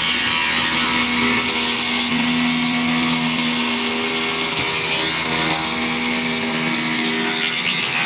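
Wood router running steadily as it cuts into wood, a continuous high-pitched whine and rush.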